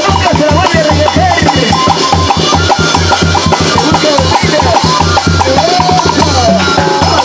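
Live band music: a flute plays a lively, ornamented melody over a steady bass and a fast, driving percussion beat.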